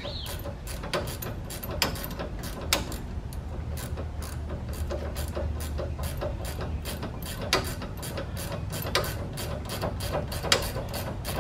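Hand ratchet clicking in a steady run of quick strokes, tightening a 17 mm self-locking nut onto the top stud of a new sway bar end link.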